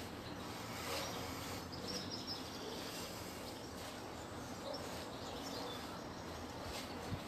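Steady outdoor background noise with faint, scattered bird chirps, and a single sharp click near the end.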